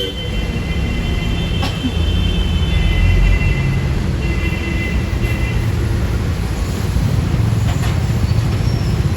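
Heavy vehicle noise: a loud, steady low rumble, with thin high squealing tones over it through the first half that stop about halfway through.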